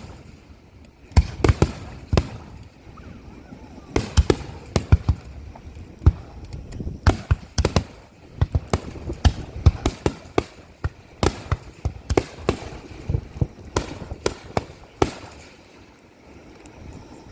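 Aerial fireworks bursting in rapid volleys: dozens of sharp bangs, often several in quick succession, for most of the stretch, thinning out and stopping a couple of seconds before the end.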